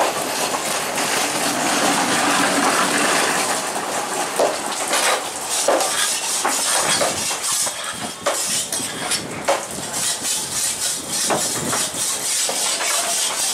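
A large knife blade scraping along a bluefin trevally and knocking on the wooden board in quick repeated strokes, the rasp of the scales being worked off the fish.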